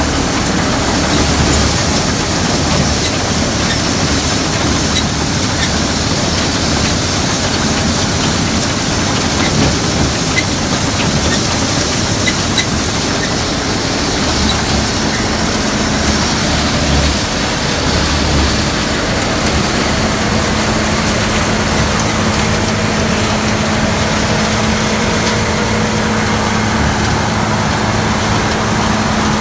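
Gleaner combine running steadily during soybean harvest, a loud, even machine noise; a steady hum comes in about halfway through and holds.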